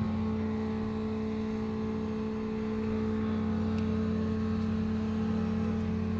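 Large engine running steadily: a low, even drone with fixed tones that does not rise or fall. A fainter, higher tone joins just after the start.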